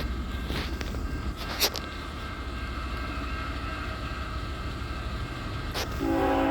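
Approaching CN freight train rumbling steadily, with a few sharp clicks. Near the end the locomotive's air horn starts a loud blast, several tones sounding together as a chord.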